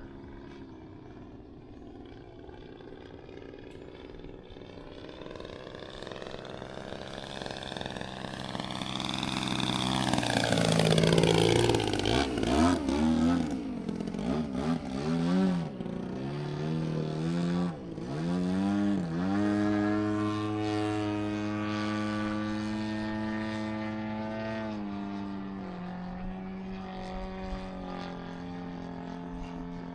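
Desert Aircraft DA-120 twin-cylinder two-stroke gas engine on a Flex Mamba 120 RC plane in flight, getting louder as the plane approaches and dropping in pitch as it passes about ten seconds in. The engine pitch then dips and rises several times with throttle changes before it settles to a steady drone, eased back slightly near the end.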